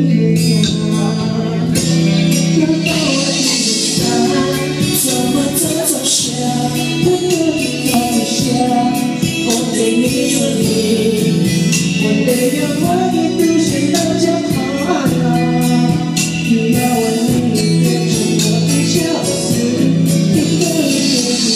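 A man singing into a handheld microphone over loud amplified backing music, through a bar's sound system.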